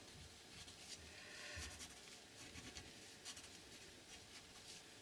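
Faint scratching of a fine-tip artist pen drawing on paper, in a few short, irregular strokes.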